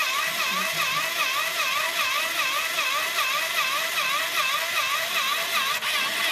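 Small electric drill motor of an automatic drilling machine model running steadily while drilling a hole, a high whine that wobbles regularly in pitch about three times a second.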